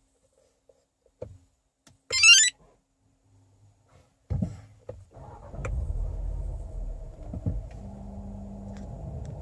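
A short, high-pitched electronic chime sounds about two seconds in. After a few clicks, a Skoda Kodiaq's engine is cranked by the starter about four seconds in, catches, flares up briefly and then settles into a steady idle.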